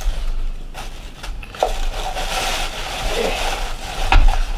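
Packing material rustling and crinkling as items are handled in a box, with a couple of small knocks, the loudest about four seconds in.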